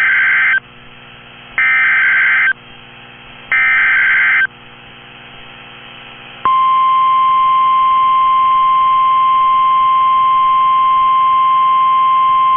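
NOAA Weather Radio Emergency Alert System signal for a tornado warning: three short, harsh digital SAME header data bursts about two seconds apart, then, about halfway through, the long steady single-pitch warning alarm tone begins and holds.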